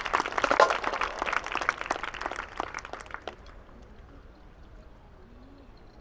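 Audience applauding, thinning out and dying away about three seconds in.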